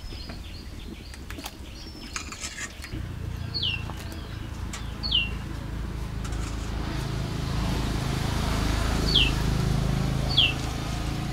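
A bird calling with short, quick whistled notes that slide downward, five times at uneven intervals of one to four seconds. Under the calls runs a low rumble that starts about three seconds in and grows louder. A few light clicks and knocks sound in the first three seconds.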